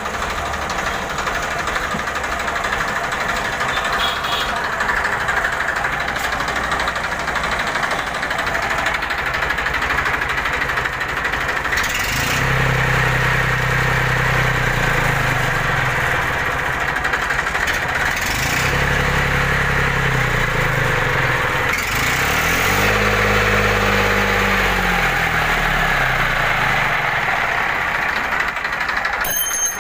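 Massey Ferguson 5245 DI tractor's three-cylinder diesel engine idling, then revved up and back down three times in the second half, the last rev going highest, as the engine runs with its alternator freshly repaired.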